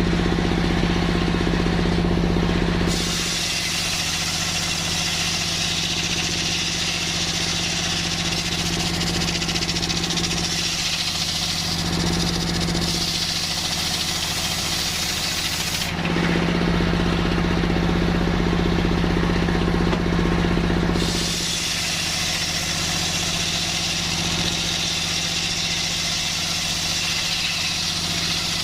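Circular sawmill blade running and sawing coconut-palm timber. A steady machine hum while the blade spins free gives way to a loud high hiss as the blade cuts. This happens twice: a long cut starting about three seconds in, and another after about five seconds of free spinning.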